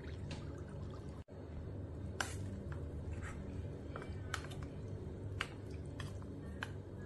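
Water poured into gram flour in a stainless steel bowl, then a spoon stirring the wet batter, with scattered light clicks of the spoon against the metal bowl.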